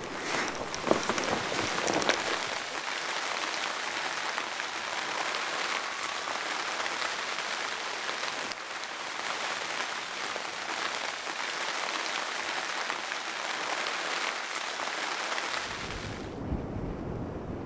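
Rain pattering on a plastic tarp shelter: a steady hiss with a few sharper ticks in the first couple of seconds. Near the end it gives way to a low rumble of wind on the microphone.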